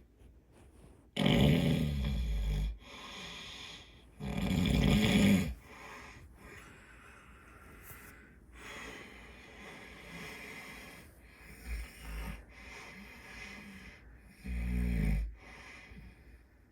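A man with a cold snoring in his sleep: three loud snores, the first two close together and the third near the end, with quieter breathing between them.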